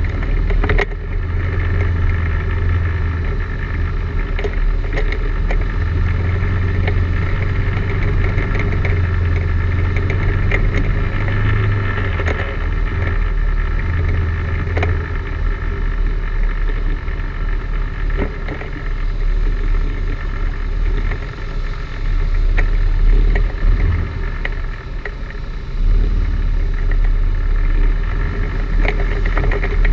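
ATV engine running at trail speed, a steady low drone that rises and falls with the throttle, with scattered knocks and rattles from the machine jolting over roots and rocks.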